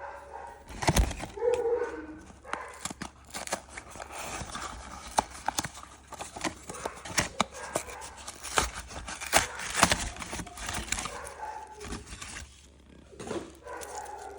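Irregular clicks and taps of lipstick packaging being handled and opened, with a few louder knocks about a second in and near ten seconds in.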